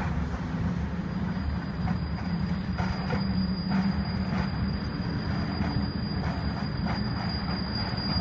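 Freight train cars rolling past with a steady low rumble. A thin, high, steady wheel squeal sets in about a second in and holds.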